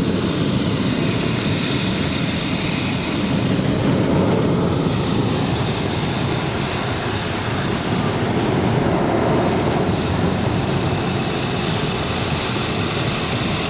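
Hot-air balloon's propane burner firing overhead, a steady loud rushing noise that runs on without a break.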